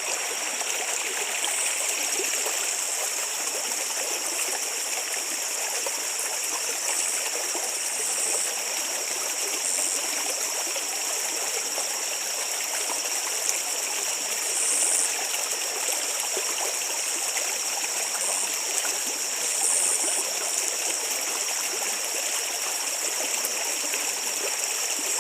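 Stream running steadily after heavy rains, a continuous rush and gurgle of flowing water. A steady high-pitched tone with short higher chirps every few seconds sits over it.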